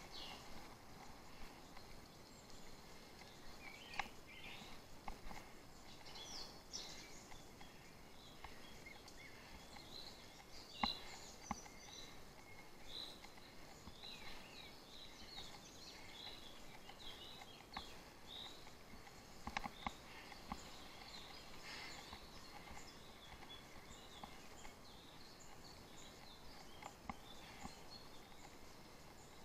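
Birds singing: many short chirps and warbled phrases over faint background hiss, with a few sharp clicks.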